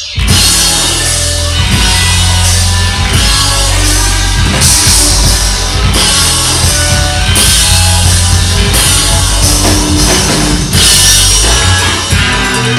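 Live rock band playing loud, with electric guitar and drum kit, coming in all at once at the very start after a brief quiet break.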